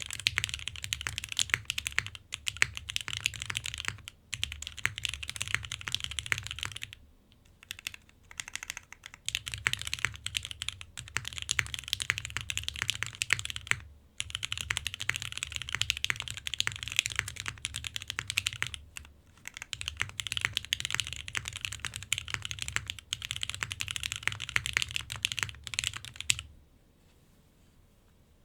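Hoshizora mechanical keyboard with lubed Gateron Ink Black V2 linear switches, a polycarbonate plate in an O-ring mount and GMK keycaps, typed on continuously in fast runs of keystrokes. There are brief pauses about 7 and 14 seconds in, and the typing stops near the end.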